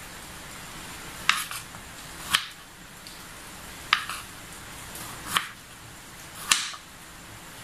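Kitchen knife slicing raw potato into wedges and striking a wooden cutting board: five sharp chops at uneven gaps of about a second or more, each a crisp tap of the blade on the board.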